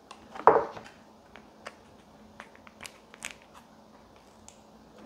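Foil lid of a Nongshim Meoktaekkang cup ramen crinkling as it is peeled back, loudest about half a second in. Scattered crinkles and clicks follow as the plastic sauce sachet is handled.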